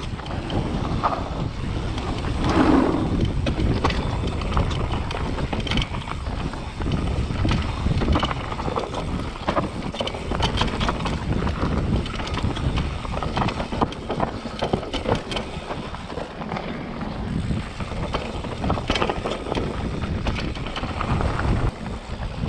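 Propain mountain bike descending a dirt trail at speed: tyres rumbling over the ground, with a steady rattle of chain and frame knocks and wind on the microphone.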